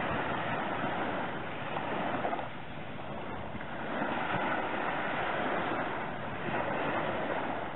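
Small waves breaking and washing up the beach, the surf swelling and fading twice.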